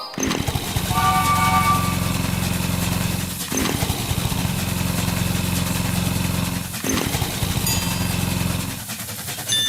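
An engine running steadily with a fast, even pulse, with a few short chime notes about a second in and again near the end.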